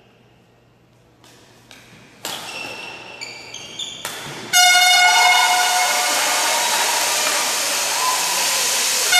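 A few sharp knocks, then from about four and a half seconds in a handheld air horn blown in one long steady blast over loud crowd noise.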